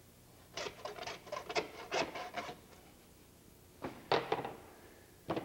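A butcher's knife cutting through lamb leg tendons and scraping on a cutting board, in a run of short strokes, then two more a couple of seconds later.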